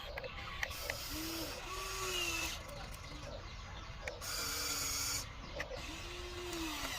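Small electric motors and gearboxes of a radio-controlled toy construction machine whirring in spurts, their pitch rising and falling, with scattered clicks.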